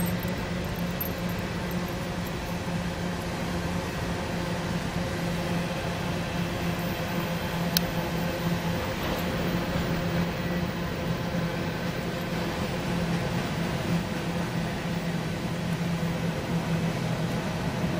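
Steady rushing noise with a low hum, from water pouring out of a dam's outflow pipe into the pond. One sharp click about eight seconds in.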